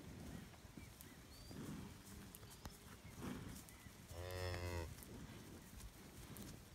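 Highland cattle mooing once, a single short moo of under a second about four seconds in.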